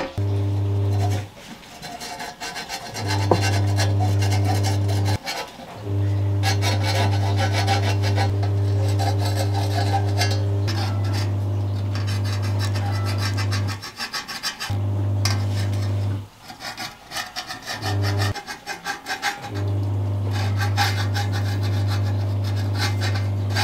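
A power tool running in on-and-off spells of a few seconds each, with a steady low hum and a rasping, rubbing sound over it.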